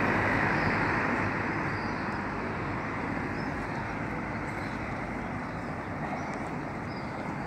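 Road traffic: a car passing and fading away over the first few seconds, leaving a steady hum of city traffic.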